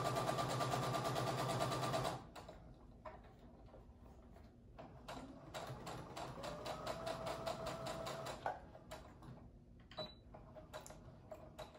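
Brother electric sewing machine stitching through cloth: it runs fast and steady, then stops about two seconds in. It then starts again and stitches slowly in short stretches, the separate needle strokes clearly spaced.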